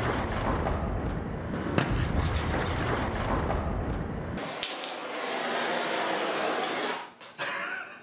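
Blowtorch flame hissing steadily as it heats a butane lighter, a continuous rushing noise with a deep rumble that drops out about four and a half seconds in, leaving a thinner hiss.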